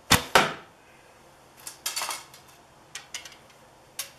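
A longbow shot: a sharp snap as the string is released, and about a quarter second later a second sharp crack. Then lighter clicks and clattering knocks follow in a short cluster, with a few single clicks near the end.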